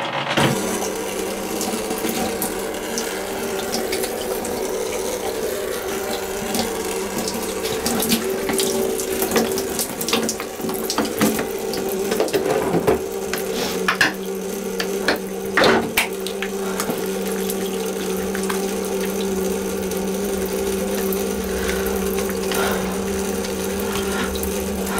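A shower running: water spraying from a hand-held shower head onto a person and a tiled shower tray. It comes on right at the start and then runs steadily, with a low steady hum underneath and a few short splashes and knocks.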